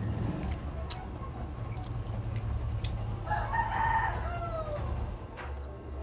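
A rooster crows once, a call of about a second and a half whose pitch falls away at the end. Scattered soft mouth clicks from chewing and a steady low hum run underneath.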